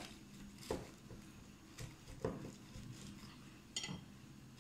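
A handful of faint taps and clicks from handling a small steel bowl and a spoon while biscuit crumbs are pressed into a plastic-lined cup.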